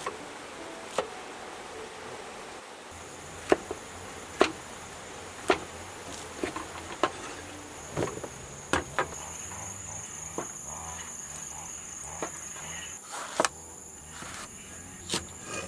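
A cleaver chopping vegetables on a round wooden chopping block, giving sharp knocks at an uneven pace of about one a second. A steady high insect drone comes in about three seconds in and carries on underneath.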